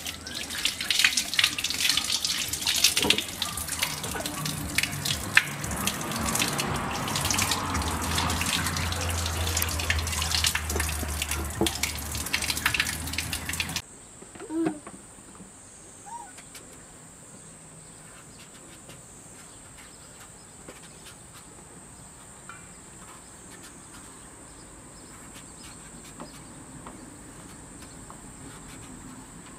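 Water running from a tap and splashing over hands washing vegetables; about fourteen seconds in it cuts off abruptly. After that a quiet background with a steady high-pitched insect drone.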